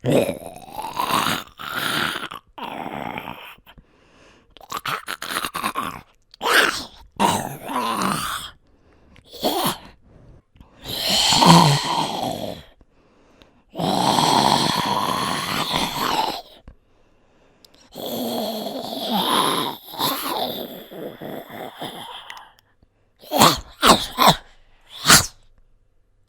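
A person's voice performing zombie growls, grunts and groans: a string of separate vocal snarls, some short and some drawn out for two to three seconds, with brief silences between them.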